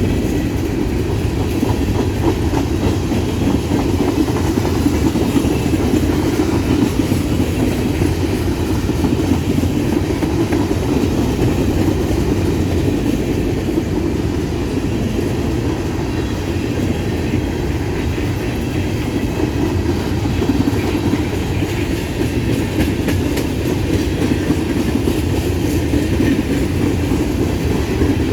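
Empty grain train's freight cars rolling steadily past, their wheels clicking over rail joints in a continuous rumble.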